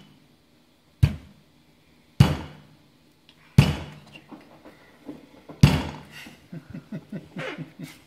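A hand striking a cornstarch-and-water mixture (oobleck) in a paper plate: four sharp, loud slaps about a second or so apart, then a quick run of lighter taps near the end.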